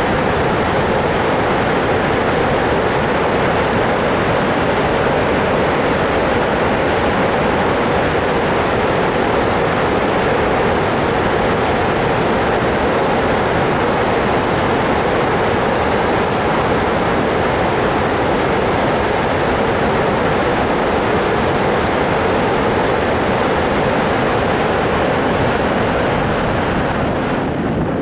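Floodwater pouring through a dam's outlet, a loud, steady rush of water with no letup.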